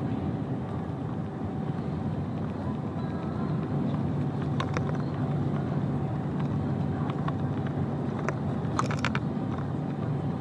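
Lorry being driven, heard from inside the cab: a steady low drone of engine and road noise. A few short clicks or rattles come about halfway through, and a quick cluster of them near the end.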